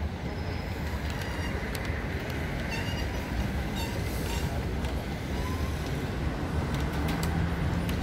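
Steady low rumble of road traffic passing beneath a pedestrian footbridge, with a few faint sharp ticks.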